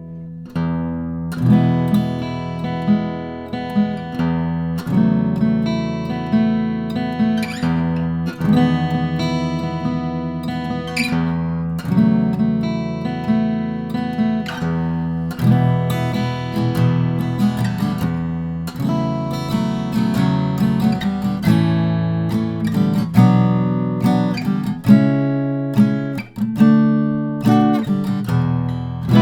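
Martin 0012-28 acoustic guitar played solo, a steady run of picked and strummed chords starting about a second in. Recorded dry through a large-diaphragm microphone, with no EQ or compression.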